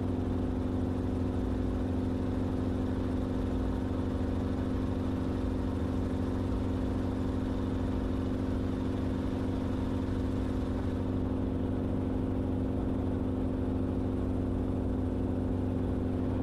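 Enstrom helicopter in cruise flight, heard from inside the cabin: a steady drone of engine and rotors with a constant low hum.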